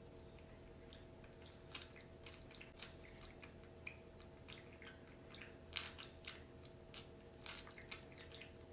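A bird pecking and biting at a mango: faint, irregular clicks and soft wet bites, a little louder about six seconds in.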